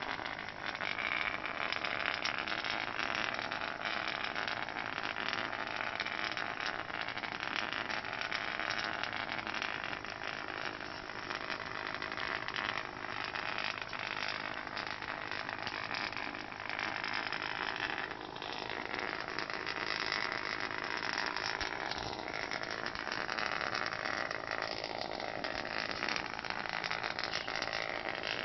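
Small vibration-motor toy buzzing steadily against a wooden floor.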